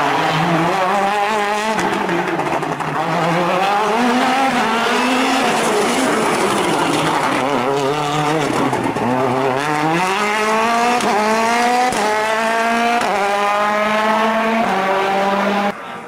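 Citroën DS3 WRC rally car's 1.6-litre turbocharged four-cylinder engine working through a slow, twisty section, the revs rising and falling with throttle and gearchanges. Over the last several seconds it accelerates hard through a quick series of upshifts, each a rising sweep cut off by a short drop. The sound falls away abruptly just before the end.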